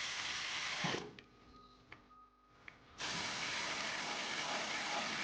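Steady hiss that drops out for about two seconds, with two faint clicks in the quieter gap, then comes back.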